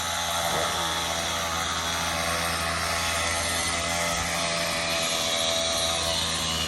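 An engine running steadily at a constant speed, with no revving.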